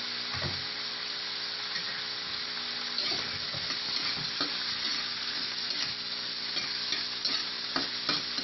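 Onion, tomato and green chili sizzling in oil in a wok, with a steady frying hiss, while a metal spatula scrapes and taps against the pan as it is stirred, more often from about three seconds in.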